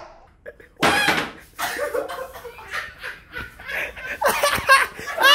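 A woman laughing hard in repeated bursts, cracking up.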